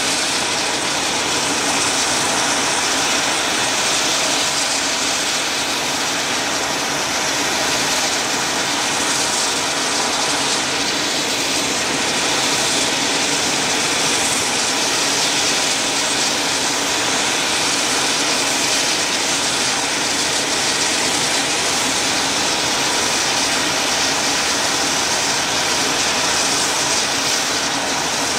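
AH-64D Apache attack helicopters' turboshaft engines running on the ground: a steady, loud rushing hiss with no break.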